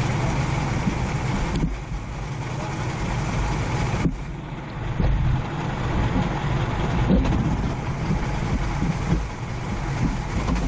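Four-stroke kart engine running at race pace on a wet track, heard onboard over a steady hiss. The upper part of the sound drops away suddenly twice, about two and four seconds in, then builds again.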